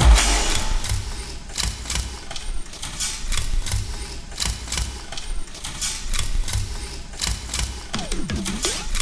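Background music with a steady beat of sharp, clicking, machine-like percussion, and a short pitch sweep near the end.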